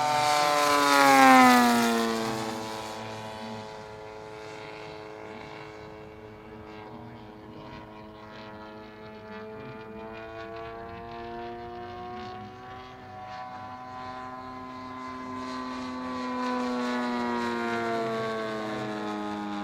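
Radio-controlled scale model propeller plane flying past, its engine note loudest about a second in and dropping sharply in pitch as it passes. It then drones steadily further off before a second, closer pass near the end, where the pitch falls again.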